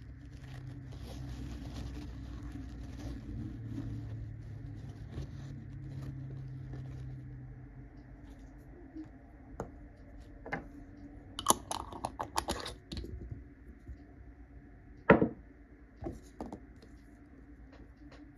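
Tissue rubbing against a fountain pen's nib and grip for several seconds, then a scatter of small clicks and taps as the plastic pen and its cap are handled and set down on a cutting mat. The loudest is one sharp knock about fifteen seconds in.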